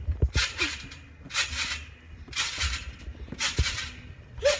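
A person bouncing on a trampoline: a rhythmic swish about once a second as the mat and springs take each bounce, with low thumps underneath.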